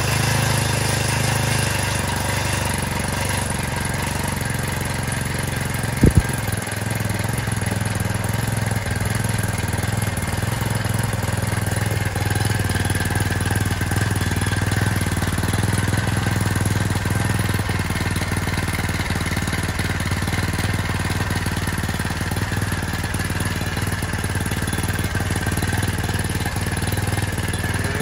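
Hangkai 4 hp single-cylinder four-stroke outboard motor running steadily at a constant speed, just started for the first time after a year in storage. There is one sharp knock about six seconds in.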